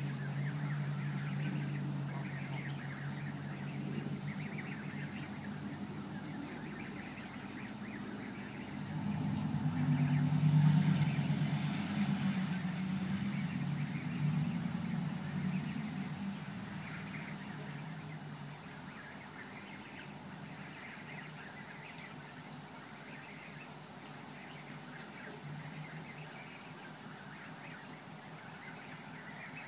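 Canada goose goslings peeping in short scattered chirps over a low engine hum, which swells about ten seconds in and then fades away, like a vehicle passing.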